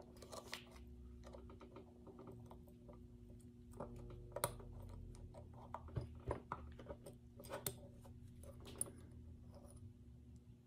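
Faint, irregular light clicks and taps of small steel pistol parts being handled and fitted, as the Colt Pre-Woodsman's firing pin and spring are worked into place, over a faint steady hum.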